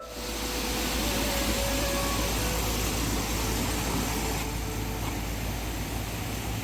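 A car driving, with a steady rushing of engine and road noise.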